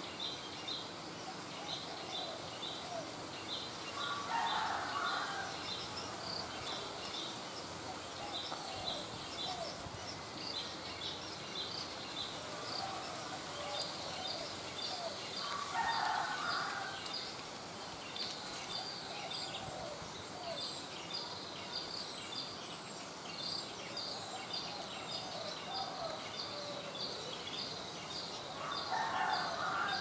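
Sooty-headed bulbuls calling. Three louder phrases of about a second each come about four seconds in, around sixteen seconds and near the end, with softer calls in between. Under them runs a continuous fast, high-pitched pulsing chirp.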